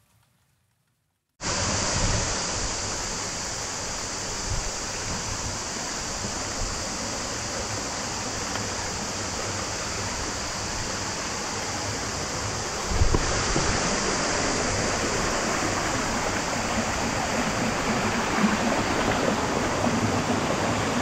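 Stream water rushing over rocks in a steady cascade, starting about a second and a half in and growing a little louder about halfway through.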